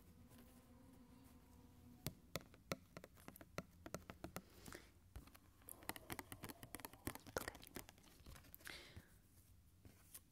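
Close-miked fingernails tapping and scratching on a stiff printed card, a quick irregular run of crisp clicks and scrapes starting about two seconds in and thinning out near the end.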